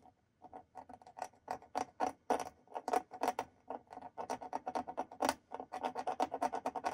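X-Acto knife blade scratching watercolour paper in rapid, short, uneven strokes, scraping out light strands in the painted hair. The strokes start about half a second in.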